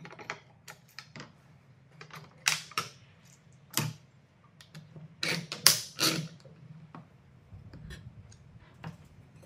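Clamps being released and set down on a table, and wooden jig parts knocking together as they are handled: a string of irregular clicks and knocks, loudest in the middle.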